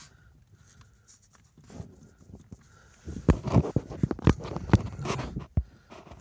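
Steering shaft of a Toyota AE100/AE114 knocking in its steering column: a rapid, irregular run of sharp knocks starting about halfway in. The shaft is loose in its worn lower plastic bushing, which the owner takes for the cause of the steering-wheel rattle.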